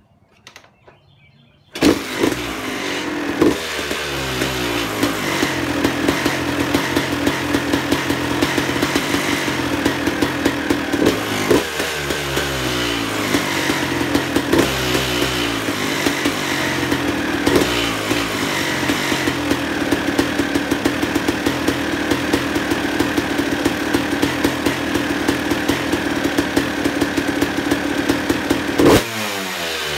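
Suzuki RM250 single-cylinder two-stroke dirt bike, fitted with the stock expansion chamber and a Pro Circuit R304 silencer, starts about two seconds in and runs loud, with the throttle blipped several times.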